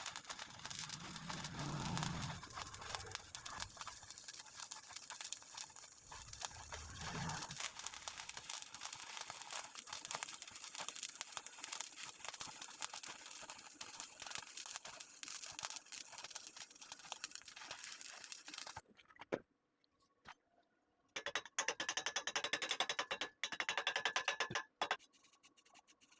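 Electric welding arc crackling steadily as a root pass is laid. The arc breaks off about nineteen seconds in, then crackles again in two short spells near the end.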